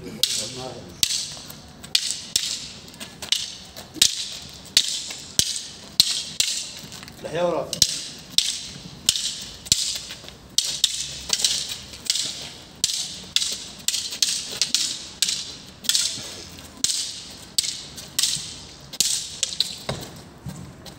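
Two men sparring with long wooden sticks on concrete: a steady rhythm of scuffing, swishing sounds about once or twice a second, with a few sharp clacks and a brief shout about seven seconds in.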